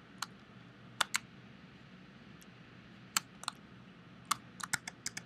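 Computer keyboard keys and mouse buttons clicking at irregular intervals, a few scattered clicks and then a quick run of them near the end, over a faint steady low hum.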